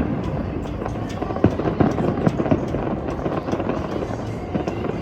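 Fireworks going off, a run of sharp bangs at uneven intervals over a steady din of crowd voices.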